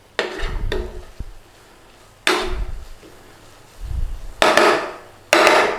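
A cooking utensil knocking and scraping in a pan of sizzling spice and tomato paste, five sudden strokes at irregular intervals, each fading quickly.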